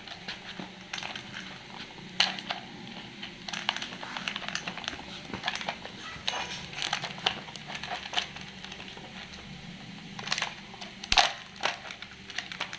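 Puppy eating dry food: irregular crunching of kibble with small clicks, and a few louder sharp clacks about two seconds in and twice near the end.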